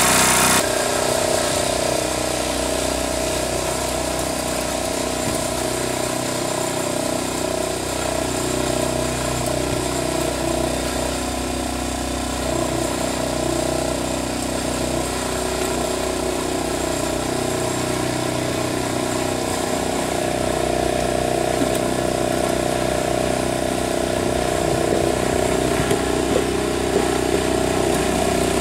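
Small Wolf-Garten riding lawn tractor's engine running at a steady speed while it pushes snow with a front blade. It drops in loudness about half a second in as the tractor pulls away and grows louder again toward the end as it comes back.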